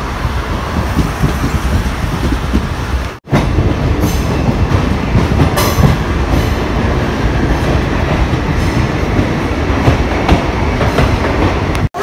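Passenger train running on its rails, a steady rumble heard from the coach's open door. The sound breaks off for a moment about three seconds in and again near the end.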